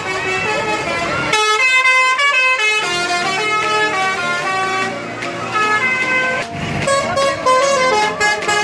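Tour bus's multi-tone 'telolet' horn playing a tune: a run of held, horn-like notes that step up and down in pitch.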